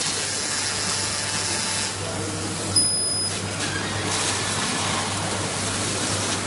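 Fiber laser cutting machine cutting sheet metal: a steady hiss of assist gas jetting from the cutting head over a constant low hum. About three seconds in, a sharp onset brings a brief high tone lasting about half a second.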